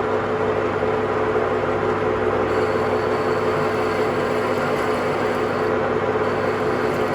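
A steady mechanical hum with a constant mid-pitched tone over an even noise, unchanging throughout.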